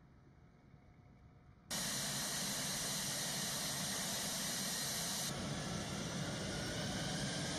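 Steady noise of a jet fighter's engine running on the ground, starting suddenly about two seconds in, with a faint rising whine near the end.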